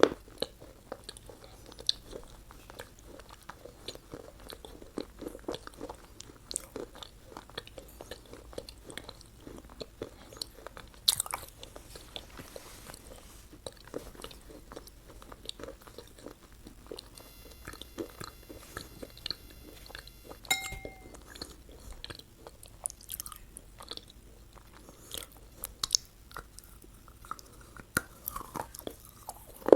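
Close-miked chewing and biting of fast food, with a steady stream of short crunches.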